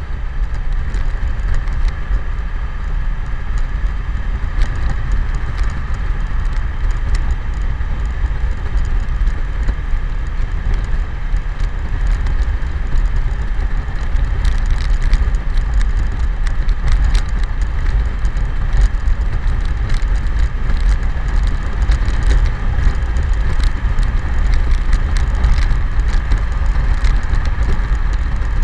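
A BMW K1100LT touring motorcycle at highway speed: its inline-four engine runs steadily under a constant heavy rumble of wind and road noise on the rider-mounted camera's microphone.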